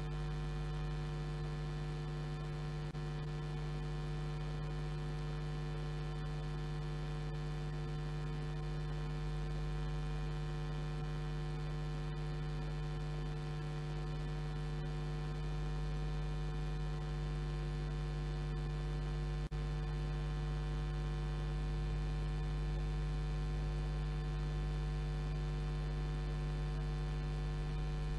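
Steady electrical mains hum with many evenly spaced overtones, unchanging throughout, with one brief click about two-thirds of the way through.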